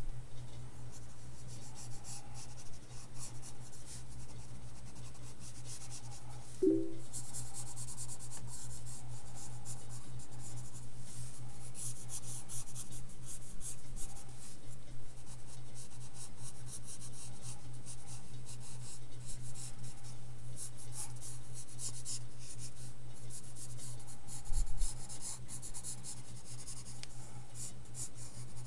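Pencil scratching across sketchbook paper in a run of short and longer strokes as a face is sketched, over a steady low hum. A single thump near the end.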